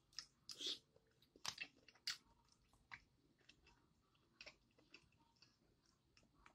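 Faint close-up eating sounds: a person chewing food, with irregular wet smacks and small clicks.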